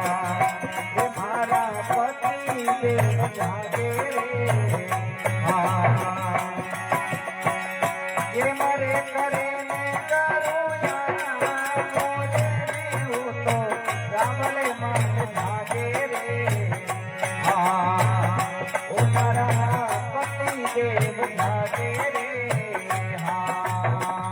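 Rajasthani folk bhajan music: a wavering melody over a regular low drum beat, with jingling rattle-type percussion.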